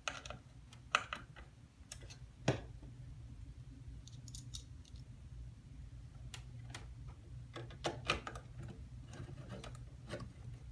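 Scattered light clicks and small metallic rattles of a hard drive and its screws being handled and fitted into a computer, over a steady low hum.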